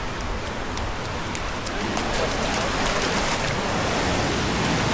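Ocean surf washing up the beach, a steady rushing that swells about two seconds in.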